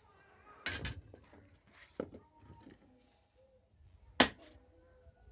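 A few sharp knocks: a quick double knock just under a second in, a single one about two seconds in, and the loudest one, a hard crack, about four seconds in.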